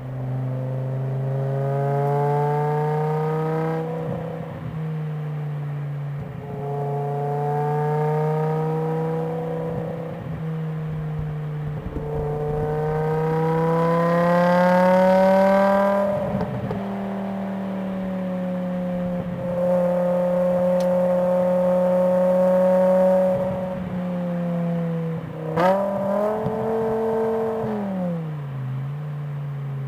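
A 2006 BMW M5 E60's V10 engine and exhaust under acceleration, heard from a microphone at the boot. The engine note rises through three pulls, dropping back at each gearchange, then holds steady. Near the end there is a sharp click and a quick rev that rises and falls away.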